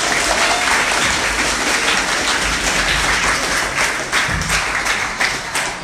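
A roomful of novice monks applauding: many hands clapping together in a dense, steady applause.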